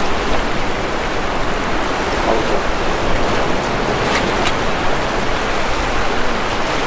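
Ocean surf washing on a rocky shore: a steady, loud rush of water noise.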